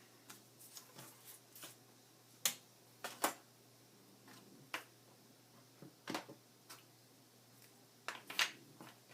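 Scattered light taps and clicks of paper and craft tools being handled on a work table, the loudest about two and a half and three seconds in, with a small cluster near the end.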